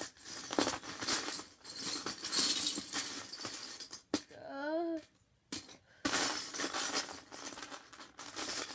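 Loose Lego bricks rattling and clattering as a hand digs through a clear plastic bin full of them, in two long stretches of sifting with a pause about halfway.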